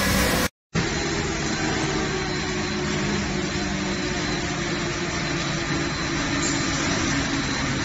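Corrugated carton-making machinery running with a steady, even mechanical noise and a faint high whine. The sound cuts out briefly about half a second in, then resumes.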